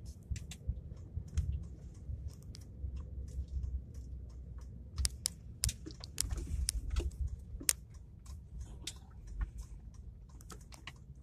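Low rumble of Norfolk Southern GP60 and GP38-3 diesel locomotives moving slowly past, with many irregular sharp clicks and knocks over it.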